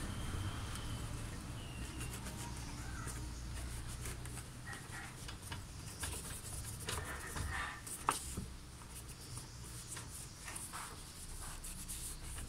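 Microfibre cloth wiping over engine-bay hoses and plastic covers, with irregular short rubbing and scuffing strokes and one sharp click about eight seconds in.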